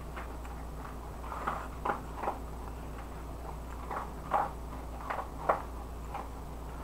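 A person slurping and chewing rice stick noodles: a series of short, wet mouth sounds in two clusters, over a steady low hum.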